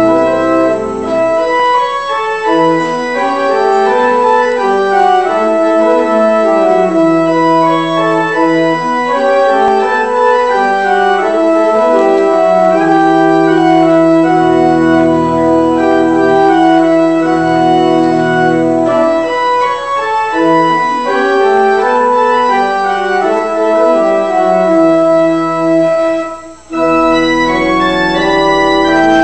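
Organ music: slow, sustained chords that change step by step. After a brief break near the end, a new chord comes in with a low bass note.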